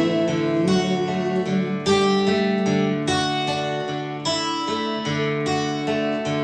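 Acoustic guitar playing an instrumental passage, chords picked or strummed, each new chord coming in about once or twice a second and ringing on.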